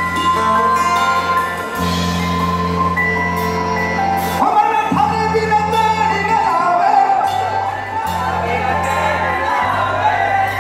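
Amplified live band music: long held notes over steady bass notes, with a male voice coming in singing about four and a half seconds in.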